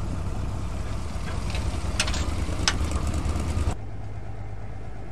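Motorcycle engine running, with two sharp clicks a little under a second apart midway. Near the end the sound drops abruptly to a quieter steady low hum.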